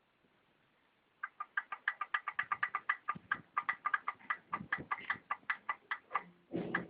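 Honda Dio scooter engine knocking: a fast, slightly irregular clicking, about seven knocks a second, starting about a second in, with a louder, deeper burst near the end. The knock is taken for a worn connecting rod.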